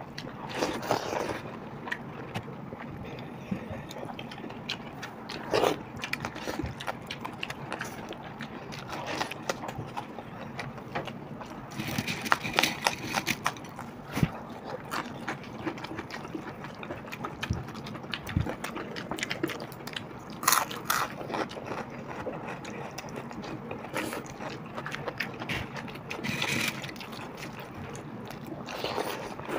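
Two people eating watered rice (pakhala bhata) by hand: wet rice being mixed and scooped with fingers, chewing, and many small clicks, with a few louder short bursts spread through.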